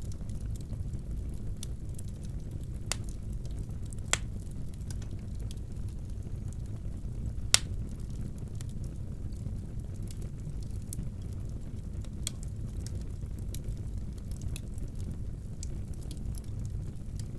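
Wood fire burning in a fireplace: a steady low rumble with scattered sharp crackles and pops, the loudest pop about halfway through.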